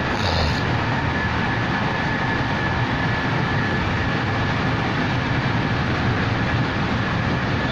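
Steady rumble and hiss heard from inside a moving passenger train carriage, with a thin steady high whine running through it and a short rattle about half a second in.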